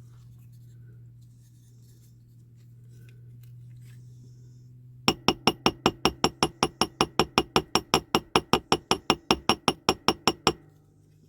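A light hammer taps rapidly and evenly on a small metal part, about five strikes a second for around five seconds. Each tap rings briefly with a clinking sound. A low steady hum is heard before the tapping starts.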